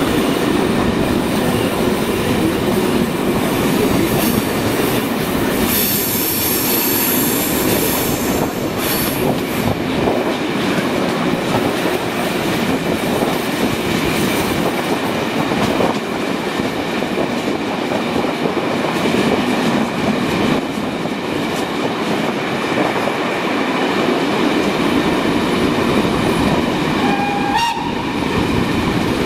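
Special train behind steam locomotive 01 202 and electric locomotive 1020 042-6 running, heard from an open coach window: steady rolling wheel-and-rail noise with wind. About six seconds in there is a burst of hiss lasting some two seconds, and near the end a short whistle tone that steps up in pitch.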